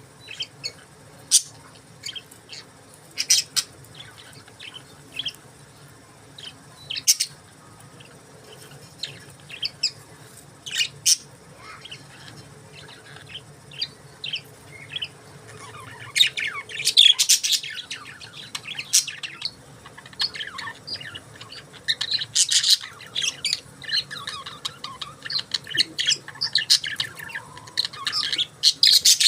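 Budgerigars chirping and chattering: short high chirps and squawks, scattered at first and growing into busier chatter from about halfway through.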